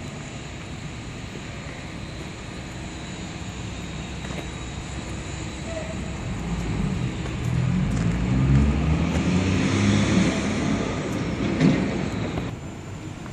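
Motor vehicle engine running, growing louder over several seconds with a shifting low rumble, then dropping off sharply near the end, over steady street noise.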